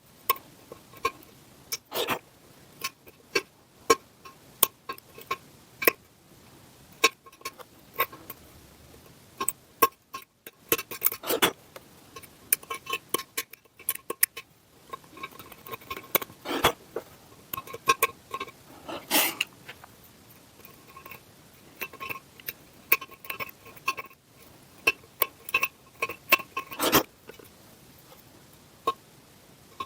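Irregular light taps, clicks and scrapes of small hand tools worked on a metal casting, loudest in short clusters.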